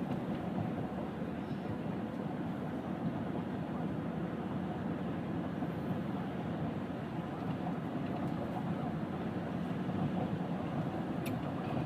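Steady road and engine noise of a moving car, heard from inside the cabin: an even low rumble with no breaks.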